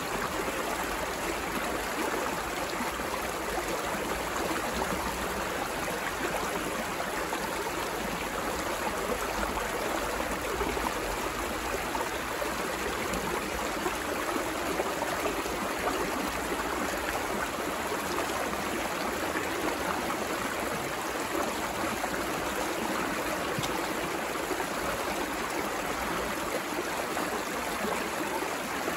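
A shallow, rocky creek running, water tumbling and splashing over stones in a small riffle with a steady rushing babble.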